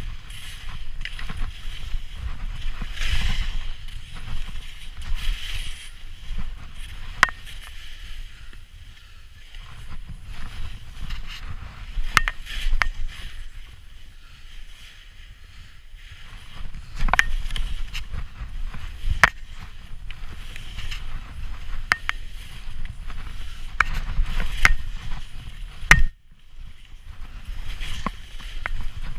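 Skis swishing and scraping over snow through a run of turns, with a low rumble of wind on the microphone and occasional sharp clicks. The noise eases off twice for a few seconds.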